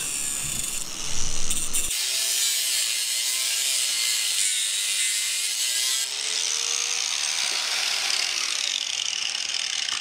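Electric angle grinder with a cut-off disc cutting through the eyelet end of a steel parking brake cable: a steady, high grinding hiss with the motor's pitch wavering slightly under load, stopping abruptly at the very end.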